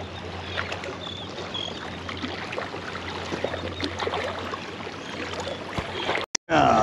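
Shallow water lapping and splashing against the rocks at the waterline, a steady wash of small irregular splashes with a faint low hum underneath. The sound cuts out briefly near the end.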